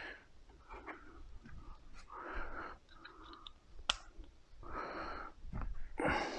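Quiet handling noises from work on a car's outer door handle: a few soft scraping rustles and one sharp click about four seconds in.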